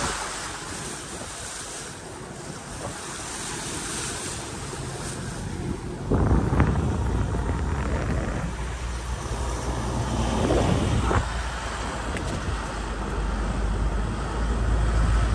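Vehicle driving on an unpaved trail, with wind buffeting the microphone. The low rumble gets much louder about six seconds in, with a few short knocks.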